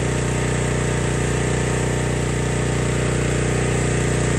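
Gas-engine pressure washer with a 4 gpm AAA pump running steadily under load, its engine hum under the hiss of the high-pressure spray from the wand.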